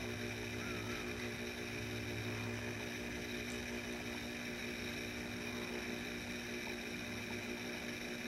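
Steady machine hum holding several constant tones, unchanging throughout.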